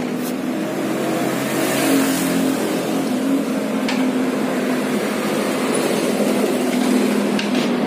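An engine running steadily, with a few faint clicks.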